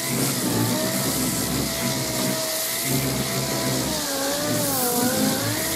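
Air-powered Bondo hog sander with 40-grit paper sanding filler on a truck's wheel arch. Its motor gives a steady whine that dips and rises in pitch as the pad is pressed and moved, over the hiss of air and grit.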